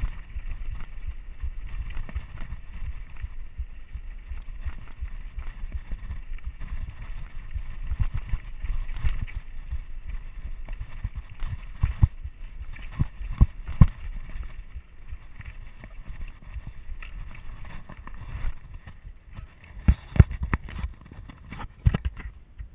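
Mountain bike rattling and clattering as it rolls down a loose rocky trail, a steady low rumble of tyres on stones broken by irregular sharp knocks from the frame, chain and suspension fork as the wheels hit rocks.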